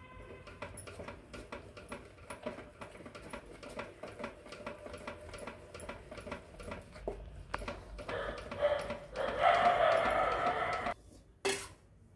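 A paddle stirring thick rice-flour batter into jaggery syrup in a pan, with soft scraping and clicking as the flour is worked in. The stirring grows louder and denser from about eight seconds in, stops abruptly a little before the end, and is followed by a single knock.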